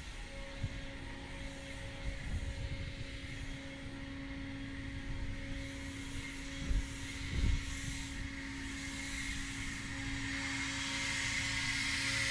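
Toro Revolution battery-powered electric equipment running: a steady electric-motor hum with air rushing over it, the rush growing louder about ten seconds in. Two dull thumps come near the middle.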